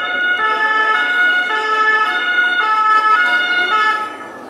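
Two-tone emergency vehicle siren, switching back and forth between two pitches about every half second, fading out shortly before the end.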